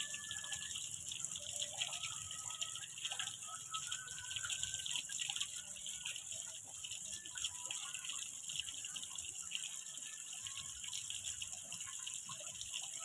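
Pond fountain spray falling onto the water surface: a steady hiss of splashing water.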